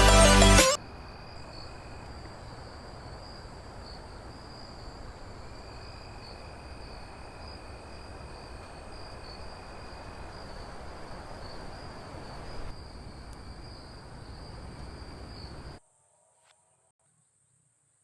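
Insects, crickets or the like, giving a steady high-pitched drone over an even rushing noise outdoors; the sound cuts off suddenly near the end, leaving only a faint high tone. A burst of music ends just under a second in.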